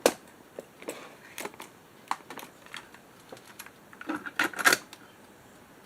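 Plastic clicks and clunks of a cassette being handled and loaded into a cassette deck: a sharp click at the start, scattered small clicks, then a cluster of louder clunks about four seconds in.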